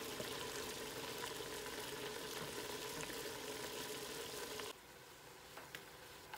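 Risotto rice simmering in hot chicken broth in a stainless steel pot: a steady sizzling, bubbling hiss while it is stirred with a wooden spoon. The sound drops away suddenly about four and a half seconds in.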